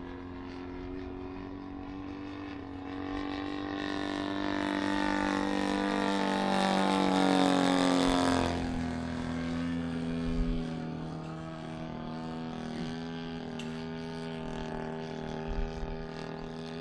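Desert Aircraft DA-120 twin-cylinder two-stroke gas engine of a Flex Mamba 120 R/C aerobatic plane droning in flight. It grows louder and its pitch falls sharply as the plane passes by about eight seconds in, then it runs on steadily.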